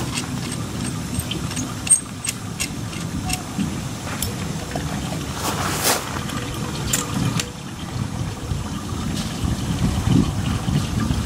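Engine-driven ore impact mill running steadily with a low rumble, with scattered sharp clicks as pieces of ore strike inside the mill, the loudest about two seconds in.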